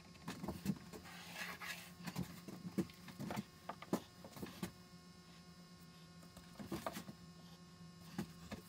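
Faint workbench handling: a pencil scratching on plywood and a metal drill bit set down and shifted on the board, with scattered light clicks and taps, over a steady low hum.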